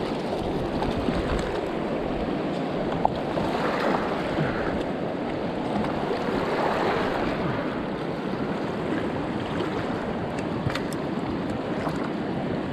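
Swift mountain river current rushing steadily over rocks and around a wading angler, with a single sharp tick about three seconds in.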